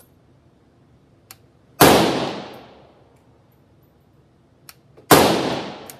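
Two rifle shots from a 7.62 Galil Ace SAR, about three seconds apart. Each sharp report rings on for about a second in an indoor range booth.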